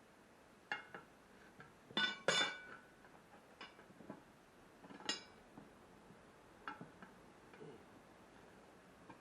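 Metal clinking and knocking from tyre-changing work on a tractor wheel: scattered sharp strikes, the loudest a pair about two seconds in with a short ring.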